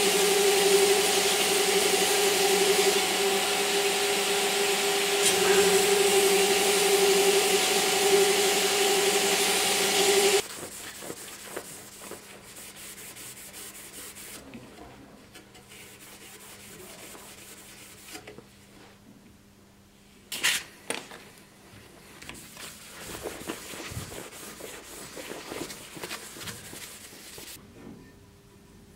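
Belt grinder running with a leaf-spring steel bowie blade held against the abrasive belt: a steady hum under a loud grinding hiss, which cuts off suddenly about ten seconds in. After that, quieter uneven rubbing as the blade is hand-sanded, with one sharp knock about two-thirds of the way through.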